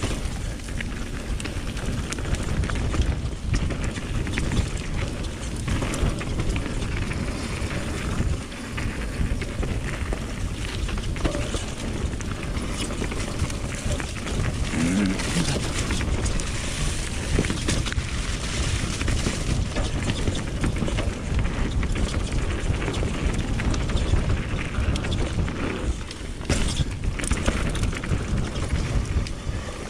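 Mountain bike riding down a dirt trail: a steady rush of wind on the microphone, with tyre noise and many short knocks and rattles from the bike over bumps. A brief voice sounds about halfway through.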